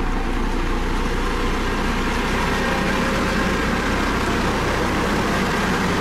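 Dynapac CC522 tandem asphalt roller's diesel engine running steadily as the machine rolls along.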